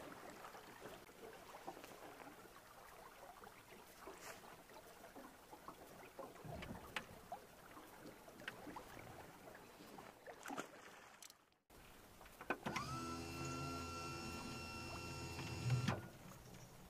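Faint quiet ambience with a few scattered clicks, then a small motor whining steadily for about three seconds, rising in pitch as it starts and cutting off suddenly.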